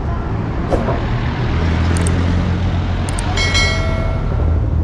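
Street traffic: vehicle engines running close by, with a low rumble that grows stronger about a second and a half in. A brief high tone sounds about three and a half seconds in and fades away.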